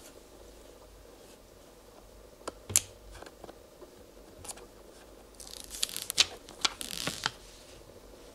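Peel-off booklet label on a plastic oil bottle being lifted and unfolded by hand: a few sharp clicks and taps about a third of the way in, then a burst of paper rustling and crinkling with sharp snaps in the second half.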